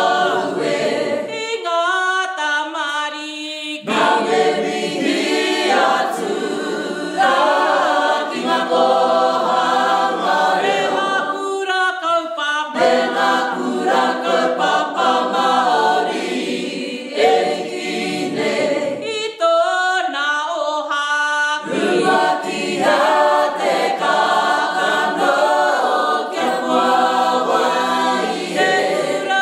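A kapa haka group of men and women singing a Māori waiata together, unaccompanied, in long phrases with short breaks between them.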